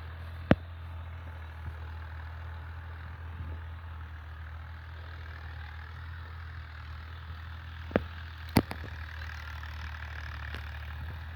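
An engine running steadily with a low, even hum, under a fainter rushing noise, with a few sharp clicks or knocks about half a second in and twice near the end.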